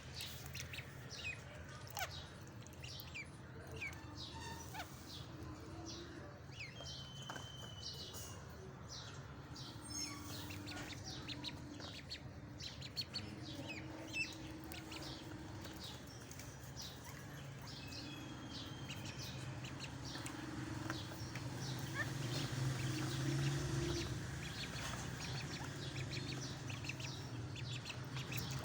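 Ducklings peeping: many short, high cheeps scattered throughout, over a low steady hum that swells for a few seconds about three-quarters of the way through.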